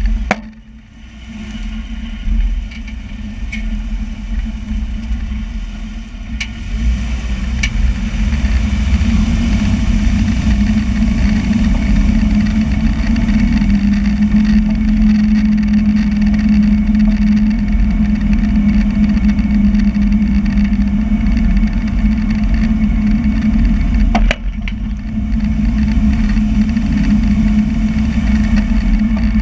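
Vehicle engine running steadily, with a few sharp pops now and then: the popping noise under investigation.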